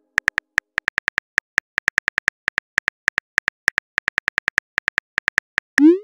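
Phone keyboard key clicks as a text message is typed: a quick, uneven run of short, sharp ticks. Just before the end comes a short rising whoosh, the message-sent sound.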